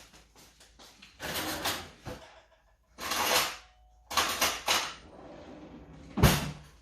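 Kitchen drawers and cupboards being worked and a plate and fork handled: several bursts of rattling and clatter, then a sharp knock near the end.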